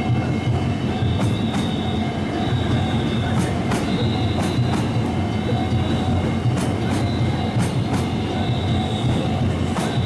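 Kintetsu Minami-Osaka Line train passing over a level crossing: a steady rumble of wheels on rail, with clicks in pairs as the wheels cross rail joints and a thin high wheel squeal held through most of it.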